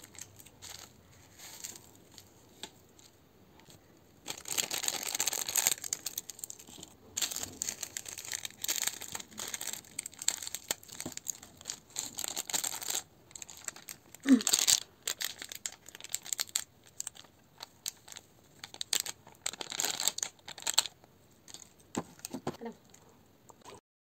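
Plastic instant-noodle seasoning sachets being torn open and crinkled in the fingers as the seasoning is shaken out, in irregular bursts of crackling.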